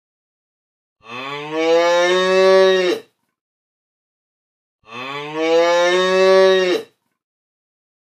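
Cow mooing twice: two long moos of about two seconds each, each rising in pitch at the start, then holding steady and cutting off abruptly.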